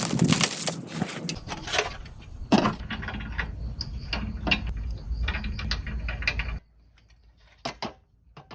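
Clicks and light knocks of a flat gas burner and its fold-out stand legs being handled and set down on a camping table. They come in an irregular run, stop about two-thirds of the way through, and a couple of single clicks follow near the end.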